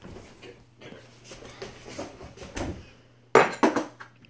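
Kitchen handling noise: a faint sliding and rattling, then a few loud, sharp clatters of dishes about three seconds in.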